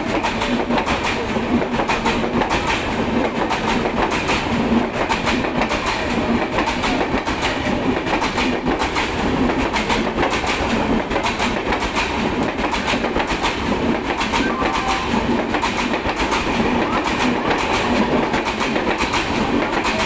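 Indian Railways LHB passenger coaches of an express train passing at speed close by. The wheels rumble steadily on the rails with rapid, continuous clicking.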